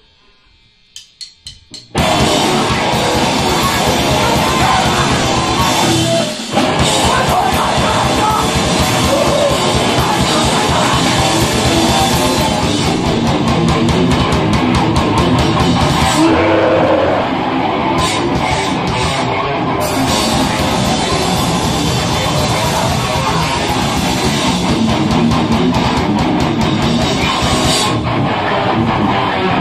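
Grindcore band playing live: four quick clicks, then drum kit and distorted electric guitar crash in together about two seconds in and play loud and dense, with a brief break about six seconds in.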